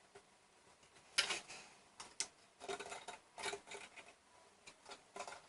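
Small screws, washers and spacers clicking and tapping as they are handled and fitted into a graphics-card cooler's mounting holes. Irregular light clicks start about a second in.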